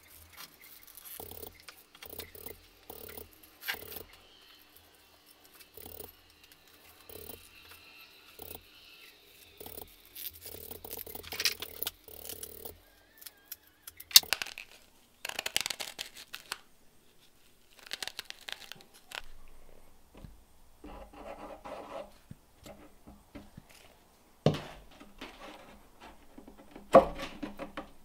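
Natural-fibre rope being worked by hand through a wooden handle block, with irregular scratchy rubbing and rustling of the fibres, and a few sharp wooden knocks in the last few seconds.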